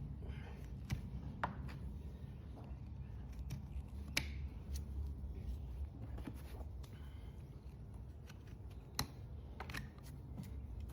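Hoof-trimming tools working on an overgrown horse hoof: scraping and cutting with scattered sharp snips and clicks.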